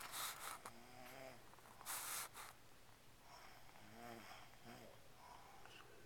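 Faint snoring: noisy breaths near the start and about two seconds in, with short wavering pitched snores about a second in and again around four seconds in.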